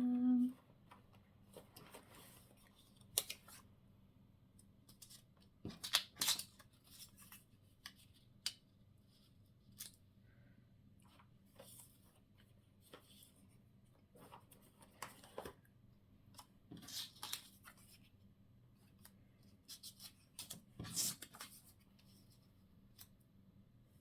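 Paper being handled and sorted by hand: scattered short rustles and crisp clicks between quiet stretches.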